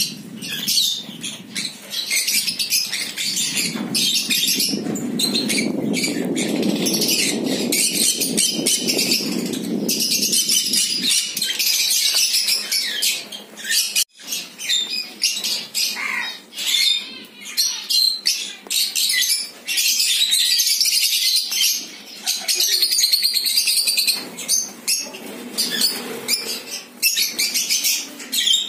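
A flock of peach-faced lovebirds chattering with dense, shrill, rapid chirps, with wings flapping. From about four to ten seconds in there is also a lower rough noise.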